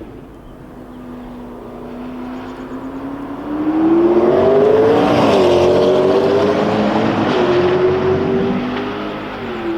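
McLaren P1's twin-turbo V8 accelerating hard toward and past the listener. Its note climbs and gets louder, then drops sharply in pitch as the car goes by about halfway through. It then holds a steady note as the car pulls away, with a brief dip in pitch once and again near the end.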